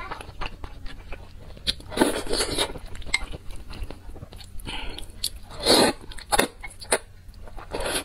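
Close-miked eating sounds from a person chewing and biting spicy noodles and crawfish: wet chewing and small clicks, with a few louder mouth sounds about two, six and eight seconds in.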